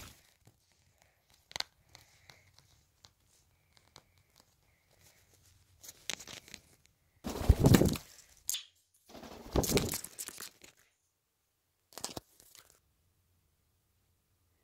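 Indian ringneck parrot flapping its wings close to the microphone in several short bursts of rustling noise, the loudest two in the middle.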